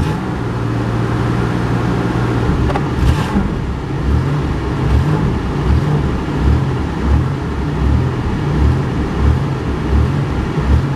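Buick Century station wagon's engine running: a steady hum at first, then, from about two and a half seconds in, an even pulsing about twice a second. The car sits with a failed transmission that won't drive it, which the owner calls toast.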